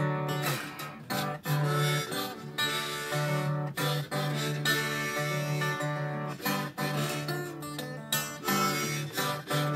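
Acoustic guitar playing an instrumental blues break: strummed chords and picked notes over a low bass note repeated in a steady rhythm.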